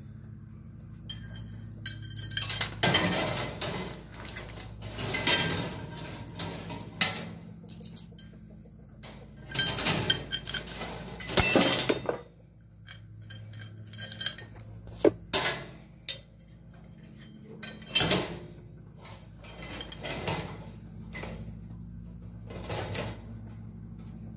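Steel cart parts clinking and rattling against each other and the steel mesh cart bed as the handle brackets and bolts are fitted, in irregular bursts of clatter over a steady low hum.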